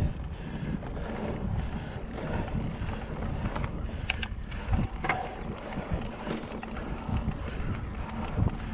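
Wind buffeting the microphone over the steady rumble and rattle of a mountain bike riding along a dirt trail, with a few short sharp clicks a little after the middle.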